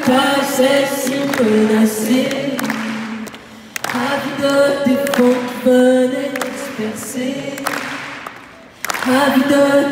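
A large arena crowd singing a melody together without accompaniment, in phrases of a few seconds with short breaks about three and a half and nine seconds in.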